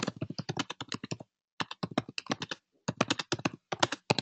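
Fast typing on a computer keyboard: rapid runs of key clicks broken by two short pauses.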